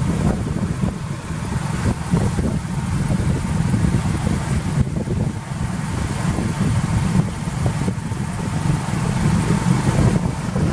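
Steady low rumble of a vehicle on the move, engine and road noise with some wind, heard from inside the vehicle.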